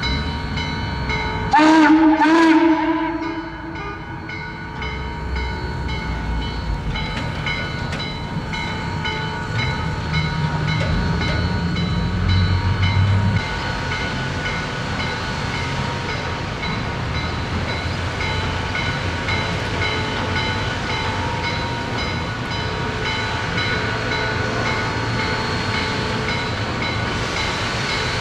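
Steam whistle of C&O 1309, a Baldwin 2-6-6-2 Mallet steam locomotive, sounds one chord-like blast about a second and a half in. After it the locomotive's bell rings in steady, even strokes over a continuous hiss of escaping steam.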